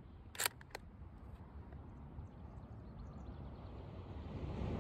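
Two sharp metallic clicks about half a second in as the bolt of an 8mm Mauser bolt-action rifle is worked closed, then a low rumble that builds toward the end.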